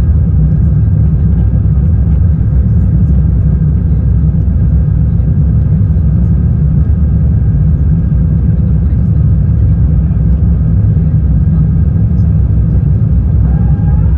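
Steady, loud low rumble inside the economy cabin of an Airbus A350-1000: its Rolls-Royce Trent XWB engines running, with air noise and a few faint steady whining tones over the rumble.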